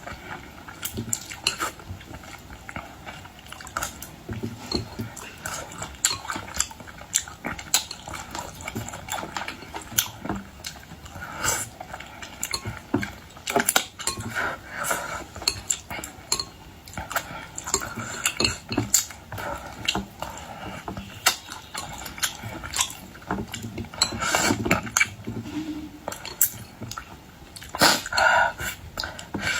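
A person eating boiled shrimp and shellfish close to the microphone: wet chewing and sucking, with frequent sharp clicks and clinks of shells and dishes.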